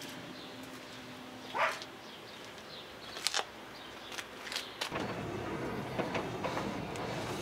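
Faint ambience with a few light clicks and one short rising chirp. About five seconds in, a steady low rumble starts, heard from inside the cabin of the K24-swapped Honda Civic hatchback as it is driven.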